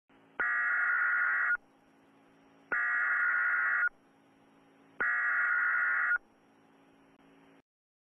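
Three long, evenly spaced electronic beeps, each a little over a second long with about a second between them, like a telephone signal tone, over a faint steady hum that cuts off near the end.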